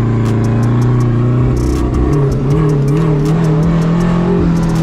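Straight-piped Dodge Neon SRT-4's turbocharged 2.4-litre four-cylinder, heard from inside the cabin while driving: its pitch steps up about two seconds in, holds, then drops near the end, with sharp ticks over the top. The owner puts the car's behaviour down to running short of fuel on its new fuel system and needing a retune.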